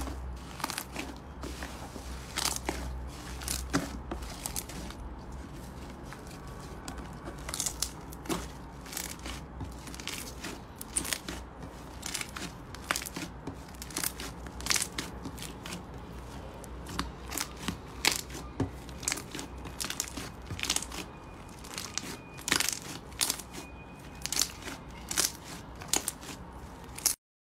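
Hands squeezing, pressing and folding slime, first a foam-bead slime and then a glossy smooth slime, giving a run of irregular crackling clicks and pops, several a second. The sound cuts off abruptly at the very end.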